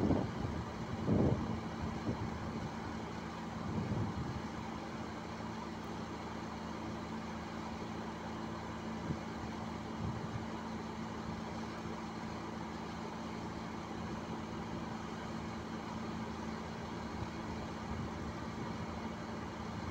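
Diesel engines of Caterpillar excavators and bulldozers working across an earthmoving site: a steady low drone, with a few louder dull knocks in the first seconds.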